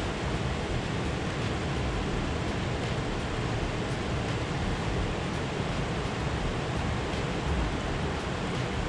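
Steady rushing of river rapids.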